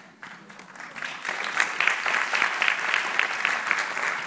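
Audience applauding in an auditorium, the clapping swelling about a second in.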